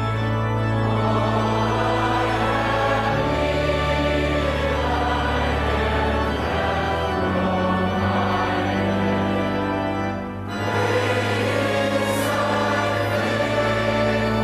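A choir singing a hymn with organ accompaniment, the organ holding sustained low notes; there is a short break between phrases about ten seconds in.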